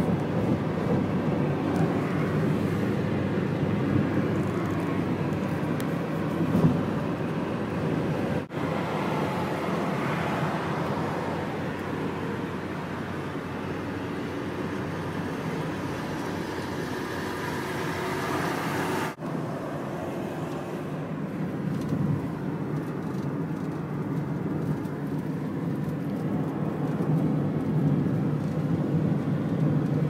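Steady low rumble of road vehicle noise, broken by two abrupt cuts, about a third and two-thirds of the way through.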